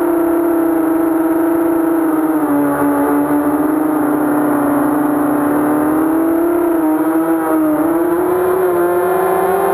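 Brushless motors and propellers of a 230 mm mini quadcopter (2206 2000 kV T-Motors on 5045 props, 3S battery) whining steadily in flight, heard from on board. The pitch dips slightly for a few seconds and then rises again with throttle changes near the end.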